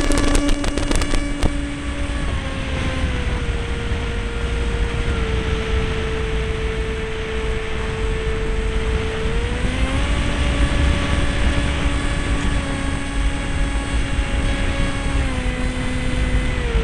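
SeaDart RC model seaplane's motor and propeller heard from on board, a steady whine whose pitch drops about two seconds in, climbs again near the middle and drops once more near the end as the throttle changes. A few sharp clicks sound in the first second or so as it skims the water, and wind rumbles on the microphone throughout.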